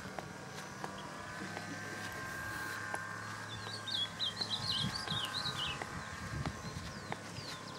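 Wild birds chirping, with a quick run of rising and falling chirped notes starting about three seconds in and lasting a couple of seconds. Low rustling thumps come in the second half.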